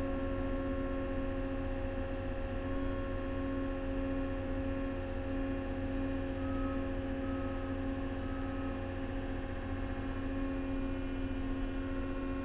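Cat small wheel loader's diesel engine running steadily at about 1,800 rpm with the lift hydraulics raising a loaded bucket under steady load, heard from inside the cab as an even drone of several tones.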